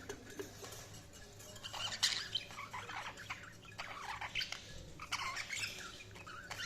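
Budgerigars chirping and chattering in short, scattered bursts of calls, quiet at first and busier from about two seconds in.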